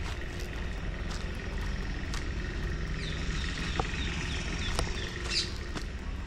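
A bird calls a quick run of about half a dozen short, falling chirps from about three seconds in, with a sharper high call shortly after. Underneath are scattered footstep clicks and a low, steady background rumble.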